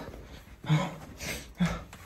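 A man panting hard in short, gasping breaths, some of them voiced, about three in two seconds.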